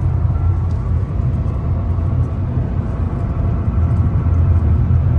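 Car driving along a road: a steady low rumble.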